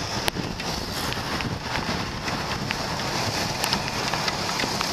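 Wind rushing over the microphone of a camera on a moving motorbike, mixed with the bike's engine and tyres hissing on a wet road, with a sharp tick just after the start.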